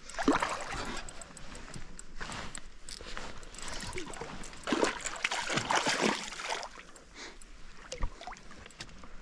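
Water splashing and gurgling in uneven bursts, loudest about half a second in and again between about five and six and a half seconds.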